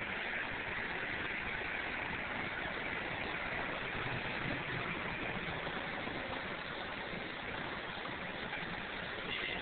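Steady outdoor background noise: an even hiss with a low rumble underneath.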